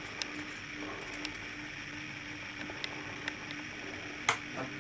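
A steady low electrical hum with a few faint clicks and one sharper click or knock about four seconds in.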